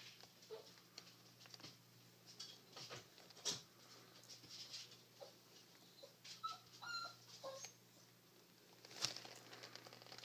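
Faint clicks, taps and rubbing as a metal novelty torch lighter is handled and taken apart in the fingers, with a few short high squeaks about seven seconds in.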